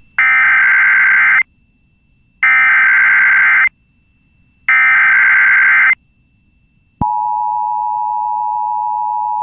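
Emergency Alert System SAME header: three bursts of digital data tones, each about a second and a quarter long with a second's gap between. About seven seconds in, the steady two-tone EAS attention signal starts. Together they open a new emergency alert.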